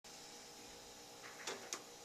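Faint steady hum of room tone, with a few light clicks or taps about one and a half seconds in.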